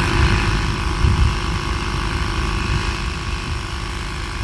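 Battery-powered portable air compressor running steadily, its small piston pump chugging fast as it inflates a car tire.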